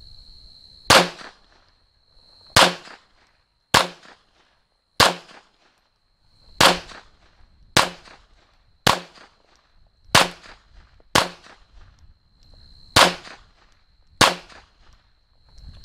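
Smith & Wesson M&P 22 Compact .22 LR pistol firing eleven single aimed shots in slow succession, roughly one every one to two seconds.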